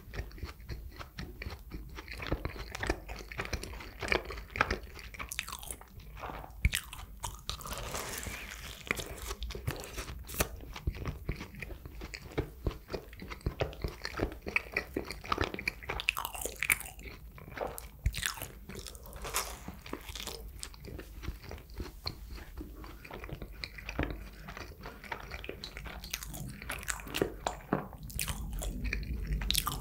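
A person biting and chewing Krispy Kreme glazed doughnuts: a steady run of small mouth clicks and chewing sounds.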